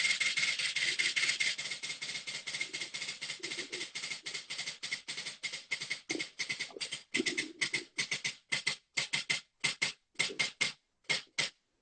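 A prize spin wheel ticking as it turns, the clicks rapid at first and slowing steadily as the wheel runs down, until only a few widely spaced ticks remain near the end.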